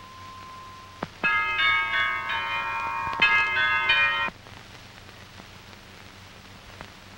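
Pitched bells struck in a short tune. An earlier note dies away, then after a click about a second in comes a quick run of bell notes that stops suddenly about four seconds in, leaving only the hiss of the old soundtrack.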